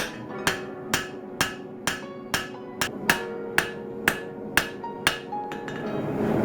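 Hand hammer striking hot Damascus steel on an anvil, a steady rhythm of ringing blows about twice a second, while the edge bevel of a chef's knife blade is forged in. A swell of rushing noise builds near the end.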